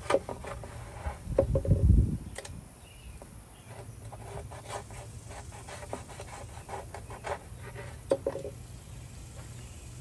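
Cleaver cutting raw stingray wing on a plastic cutting board: a run of small clicks, scrapes and taps as the blade slices the flesh and cartilage and meets the board. A brief low rumble is the loudest sound, about a second and a half in.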